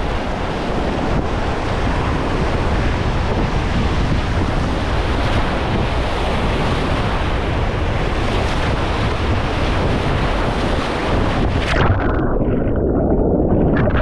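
Whitewater rapids rushing and churning around a kayak, heard close up on a bow-mounted action camera with spray hitting the microphone. About twelve seconds in the sound turns dull and muffled as the kayak rolls over and the camera goes under water, with a short splash near the end.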